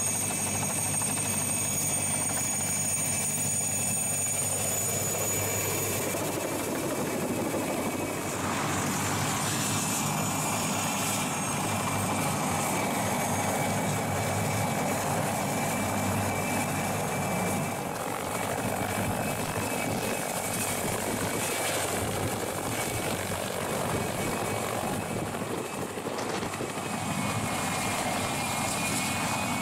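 Mil Mi-2 helicopter flying low, its twin turboshaft engines whining steadily over the chop of the main rotor. The highest part of the whine drops out about six seconds in, and the pitch then falls briefly as the helicopter moves.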